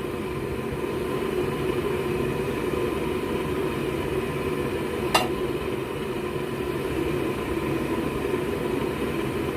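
Propane forge burners running steadily with an even rushing noise. A single short click comes about five seconds in.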